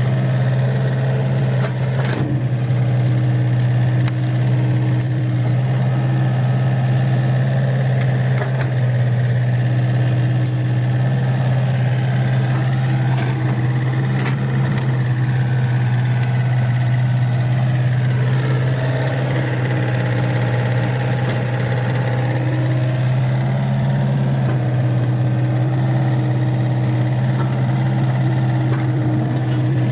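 Kobelco SK50P mini excavator's diesel engine running steadily with a constant low drone, with a fainter whine that rises and falls around the middle as the machine works, and a couple of short knocks in the first several seconds.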